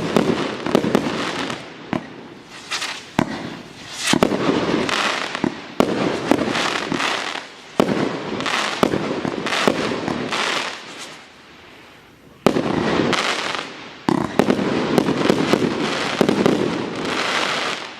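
TKB908 'Apocalypse' 1.2-inch, 108-shot firework battery firing: sharp shot reports, each followed by a wave of crackling bursts, one after another, with a short lull about two-thirds of the way through.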